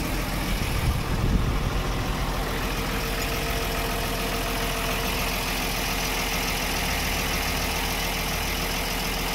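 An engine idling steadily, unseen, with an even, unchanging running sound.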